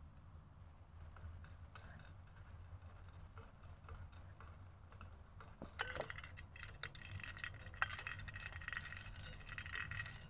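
Teaspoon stirring in a glass tea cup on a metal saucer. A few light clicks come first, then a quick, continuous tinkling of clinks begins about six seconds in.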